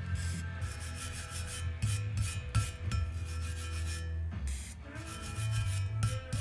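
Soft brass-bristle brush scrubbing Gumout-softened old silicone sealant off the machined mating surface of a two-stroke engine's crankcase half: quick, light back-and-forth scratching strokes, with a short pause about four seconds in.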